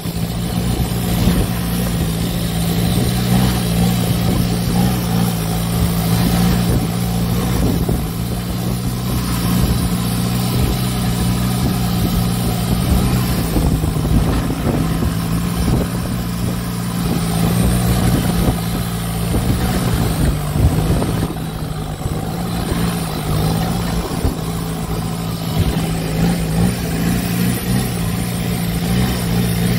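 Boat engine running steadily under way, a constant low drone with no change in pace.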